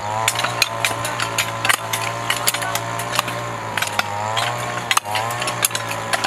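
Hand hoes chopping into dry, stony soil between corn rows: irregular sharp strikes, several a second. A steady low hum runs underneath.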